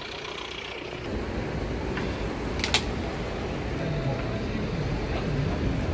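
A second of street traffic, then a bus engine running steadily as passengers board, with one sharp click a little under three seconds in.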